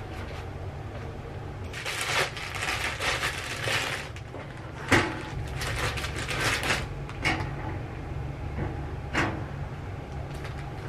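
Plastic bread bag crinkling as slices are taken out, in two spells, with a sharp knock about five seconds in and a few lighter clicks later. A steady low hum runs underneath.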